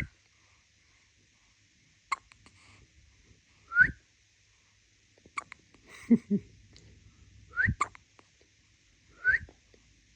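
A newborn baby hiccuping, with a woman whistling short rising notes, repeated several times at intervals of a second or two.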